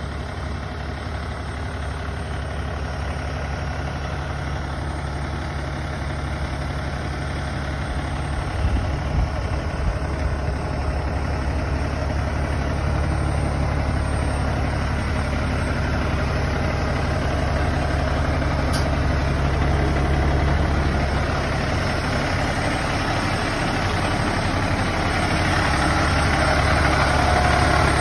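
Peterbilt 567 dump truck's diesel engine idling steadily, growing gradually louder.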